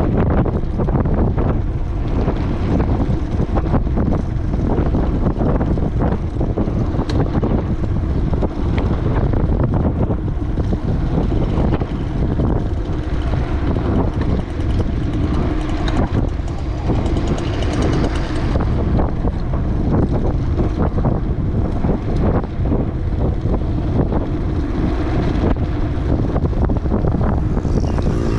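Wind buffeting the microphone during a bicycle ride: a loud, steady low rumble.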